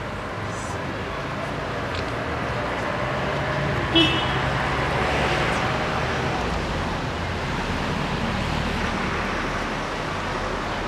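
Road traffic going by: a car passes, swelling and fading, louder about five seconds in. A short, sharp toot sounds once about four seconds in.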